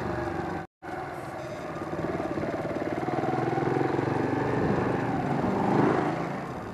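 Motor vehicle engine running, growing louder to a peak about six seconds in and then easing off. The recording cuts out completely for a split second just under a second in.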